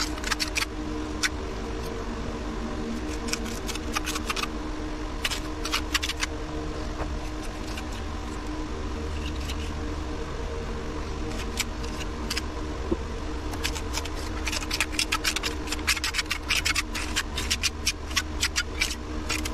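Steel tuckpointing trowel scraping and tapping mortar into concrete block joints: bursts of short scrapes and clicks, sparse in the middle and densest in the last few seconds, over a steady background hum.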